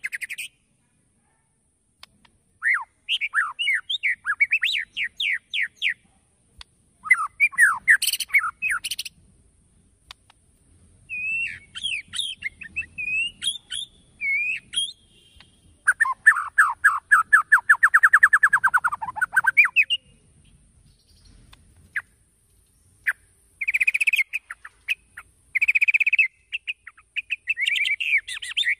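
Male white-rumped shama singing in separate phrases with short pauses between them: rapid trills, whistled sweeps, harsh buzzy notes near the end, and about midway a long fast rattle that drops in pitch. This is the full, excited song that keepers play as a trigger recording to provoke other shamas into singing.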